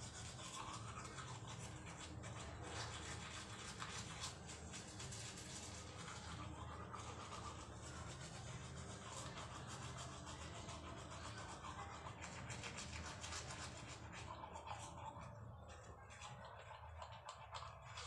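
Toothbrush scrubbing teeth with toothpaste in quick back-and-forth strokes.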